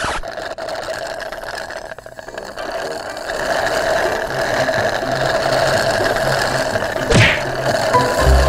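Iced blended drink being sucked hard through two straws: a steady, hissing slurp that grows louder after the first few seconds, with one brief sharp sweep near the end.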